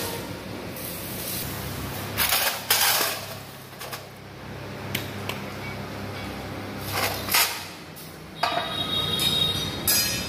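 Steel machine parts clanking and scraping several times, the last scrape near the end ringing. A steady low hum runs underneath.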